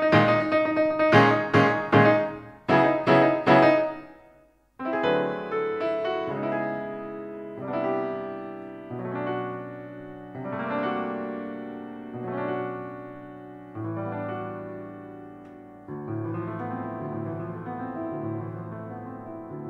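Piano playing loud, quickly repeated chords, breaking off about four seconds in. After a short pause, slow chords are struck about every second and a half, each left to ring and fade.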